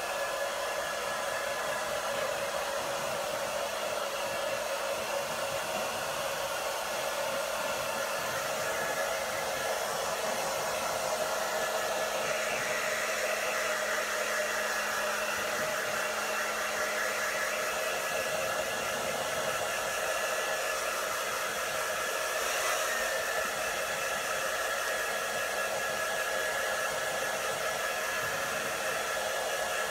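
Handheld hair dryer blowing steadily, a constant rush of air with a steady motor hum under it. The sound brightens a little about twelve seconds in.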